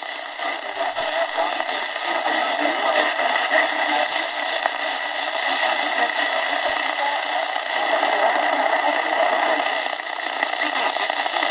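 Tecsun 2P3 AM radio's small speaker playing medium wave static and hiss, with faint station audio under the noise, as the dial is tuned up the band between stations.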